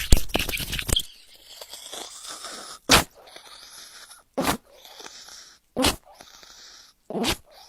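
A small dog making four short, sharp sounds about a second and a half apart over a faint steady hiss, after a loud sound that dies away in the first second.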